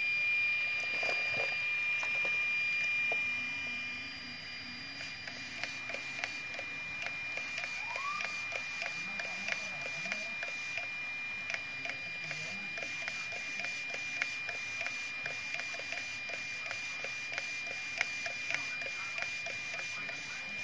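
JX 32 kg digital RC servo powered up and driven back and forth from the transmitter's steering wheel: a steady high-pitched whine, joined from about five seconds in by rapid short ticks as the servo moves.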